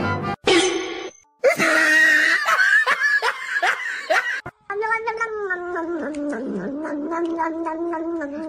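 A cat yowling in drawn-out, wavering calls, after a short loud burst near the start.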